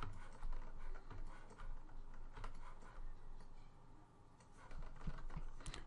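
Scattered clicks and taps of a computer keyboard and mouse, a few at a time, with a quieter stretch a little past the middle.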